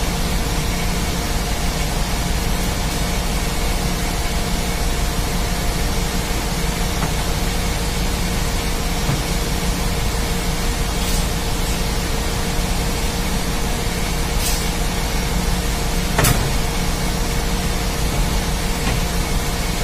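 Steady din of a ship's engine-room machinery: a constant rushing noise with a faint steady hum under it. A few brief clicks come in the second half, the sharpest about sixteen seconds in.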